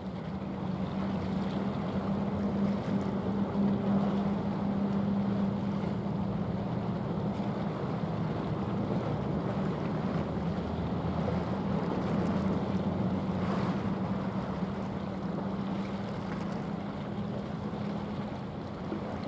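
Steady low hum of a ship's engine running, with wind and water noise over it.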